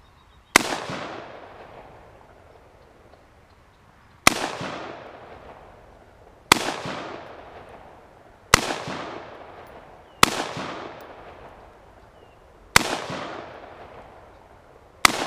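AR-15 rifle with a 20-inch barrel firing 5.56 mm rounds: seven single shots spaced two to four seconds apart, the last right at the end, each followed by a long echoing tail.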